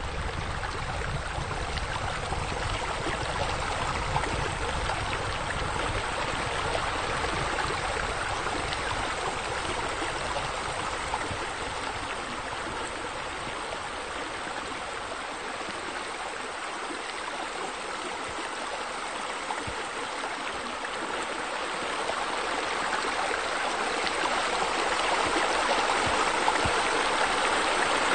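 Steady splashing of running water from pool water features, a bubbler fountain and sheer-descent waterfalls spilling into the pool. A low rumble under it fades out about halfway through, and the water grows louder over the last several seconds.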